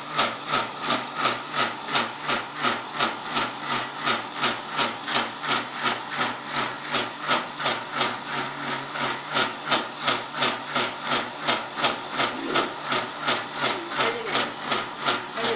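Electric mixer grinder running, its motor whining under a steady rhythmic chuffing of about three puffs a second, like a steam locomotive, as it pushes smoke out of a pot fitted on its jar.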